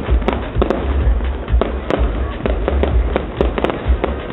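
Aerial fireworks shells bursting: a quick series of sharp bangs and crackles, several a second, over a steady low rumble.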